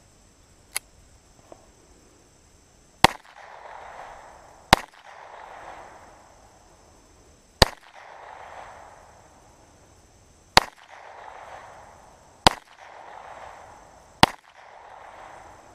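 Walther P22 .22 LR pistol firing CCI rounds: six sharp shots at an uneven pace, starting about 3 s in, each round going off normally. A few light clicks come before the first shot.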